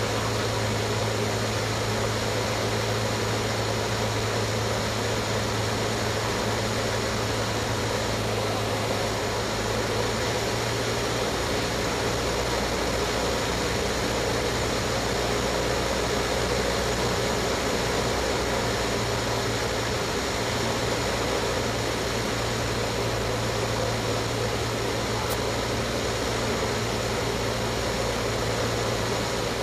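Cessna 152's Lycoming O-235 four-cylinder engine and propeller droning steadily in flight, with a constant rush of air noise. The engine note shifts slightly about ten seconds in.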